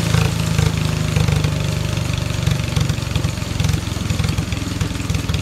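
Small vintage farm tractor engine idling steadily with a low, slightly pulsing note.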